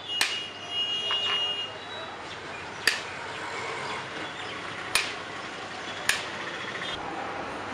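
A metal slotted spoon working through biryani rice in a large aluminium pot, knocking sharply against the pot four times at uneven intervals, over steady street noise.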